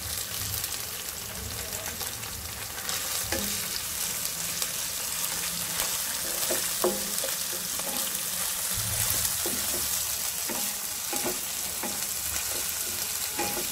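Ginger-chili-garlic paste frying in hot oil with browned garlic, sizzling steadily, stirred with a wooden spatula that scrapes and taps the pan now and then. The sizzle grows louder about three seconds in.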